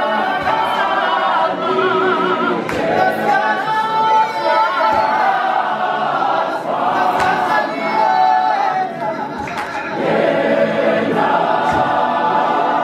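Mixed men's and women's gospel choir singing a cappella in harmony, with several voice parts heard together and a leading voice wavering above them.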